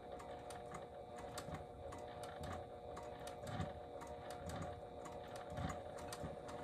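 Juki sewing machine stitching slowly through a bulky sleeve-cuff seam: a quiet, steady motor whine with irregular ticking from the needle mechanism.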